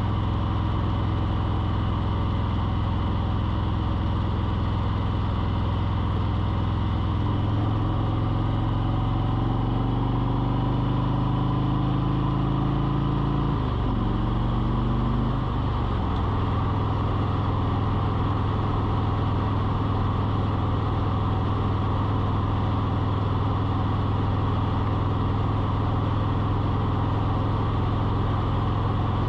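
An engine or motor running with a steady hum. About a third of the way in its pitch climbs for several seconds, dips twice in quick succession, then settles back to a steady pitch.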